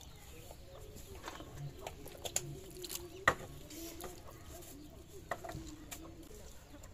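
Cut brinjal pieces swished by hand in a bowl of water and lifted out onto a steel plate: light splashes and scattered knocks of wet pieces against metal, the loudest a sharp knock about halfway through.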